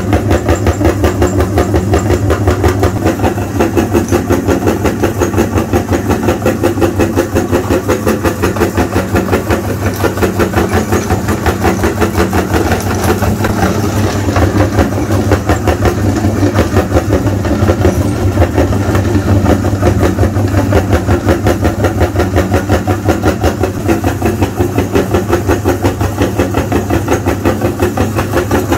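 An engine running steadily at idle, with an even pulse of about five beats a second.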